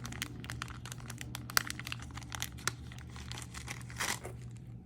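Crinkling and rustling of wrapping or packaging being handled and opened by hand: a run of small irregular crackles, with a louder rustle about four seconds in, over a low steady hum.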